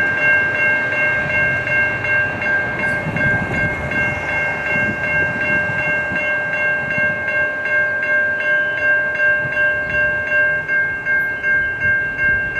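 Grade-crossing warning bell ringing steadily at about two strikes a second, signalling an approaching train, over a low rumble.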